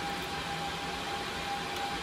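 Steady whir and hiss of networking-equipment cooling fans running, with a steady whine and a low hum under it.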